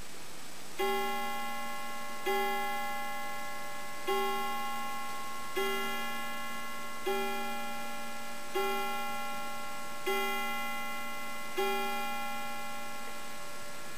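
German mantel clock of about 1900–1910 striking eight o'clock: eight ringing strokes about a second and a half apart, each tone dying away slowly.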